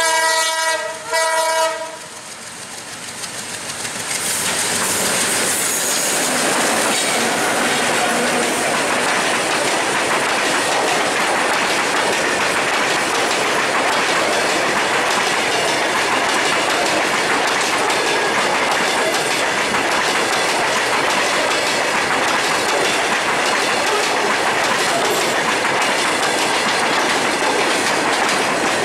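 WDM2 diesel locomotive's horn sounds two blasts at the start. The sound then builds over a few seconds to a long freight train of covered box wagons passing close by, with a steady clickety-clack of wheels over the rail joints.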